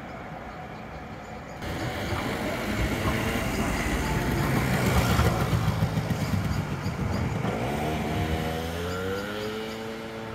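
Articulated tram passing close below, its wheels rolling over the rails, loudest about halfway through. Near the end, a motor whine rises in pitch.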